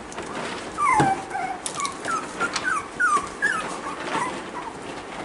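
Young cockapoo puppies whining and squeaking: a string of short, high, falling whimpers, with a longer falling whine about a second in, over light scratching and clicks.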